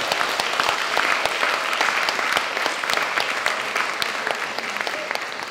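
Audience applause, many hands clapping at once, slowly dying down.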